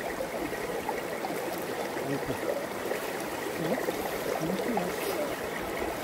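Valley stream water flowing steadily.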